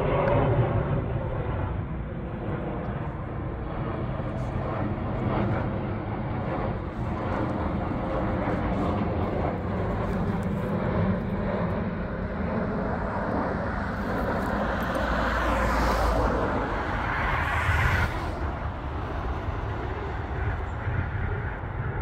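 Steady outdoor rumble of background noise, like distant traffic or wind on the microphone. A louder rising hiss swells about two-thirds of the way through and then stops suddenly.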